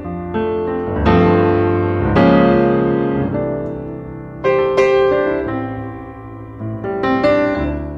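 Background music: piano chords, each struck and left to ring out.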